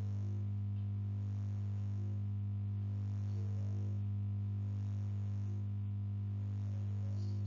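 Steady electrical mains hum on the recording: a low, even buzz with a ladder of overtones that does not change.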